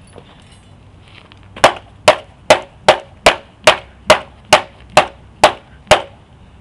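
About eleven sharp blows in a steady rhythm, a little over two a second, as a thin rod repeatedly strikes a homemade paper laptop made of taped-together notebooks lying on the ground.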